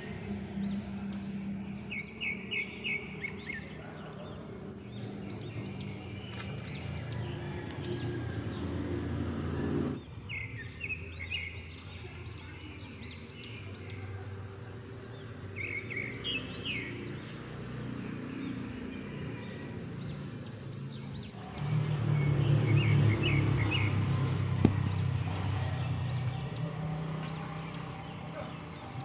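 Swiftlets chirping in short, rapid twittering runs, over a steady low hum that grows louder about three-quarters of the way through.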